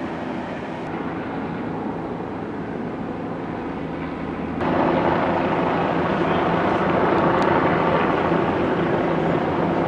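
A steady mechanical drone with a low hum, like an engine running, that jumps suddenly louder about halfway through and holds there.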